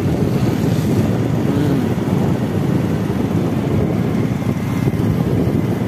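Wind rushing over the microphone of a moving motorcycle, with the bike's engine running underneath as a steady, rough low noise.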